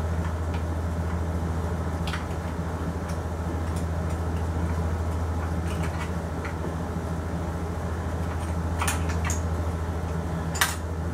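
A few small metallic clicks and taps, scattered and sharpest near the end, as the CO2 compartment and plunger of a Crosman Model 70 CO2 air rifle are worked by hand, over a steady low hum.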